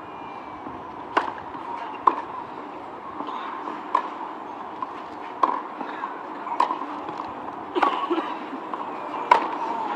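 Tennis rackets striking the ball back and forth in a rally on a clay court, a sharp pop every one to two seconds.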